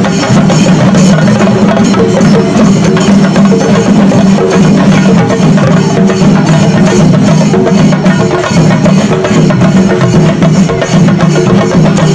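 Shinkari melam: a group of chenda drums beaten fast with sticks, with ilathalam cymbals clashing along, loud and densely packed.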